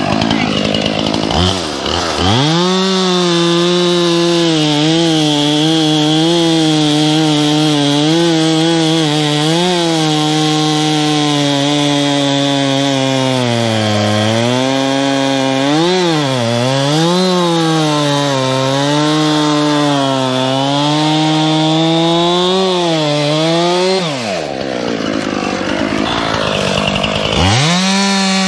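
Two-stroke chainsaw cutting wood, its engine pitch dipping and recovering again and again as it bogs under load in the cut. About 24 seconds in the steady engine note breaks off briefly, then the saw comes back up to speed near the end.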